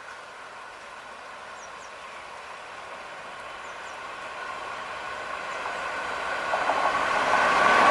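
Indian Railways WAP-4 electric locomotive approaching along the platform, its steady mechanical whine growing louder throughout, with wheel and rail rattle joining in near the end.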